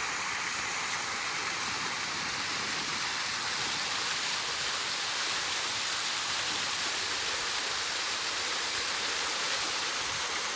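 Small waterfall on a mountain creek, water pouring over rock into a pool with a steady hissing rush.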